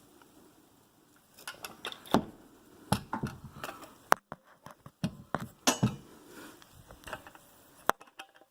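Ratcheting torque wrench clicking in irregular bursts of short, sharp clicks as a bumper support nut is tightened toward 38 foot-pounds, starting about a second and a half in.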